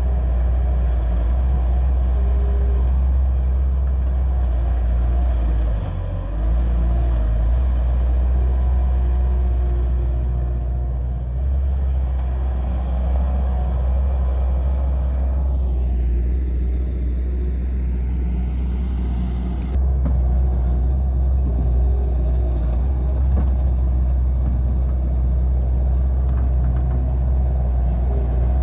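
Bobcat skid-steer loader's diesel engine running under load while it digs and pushes soil, a steady low rumble that dips briefly about six seconds in.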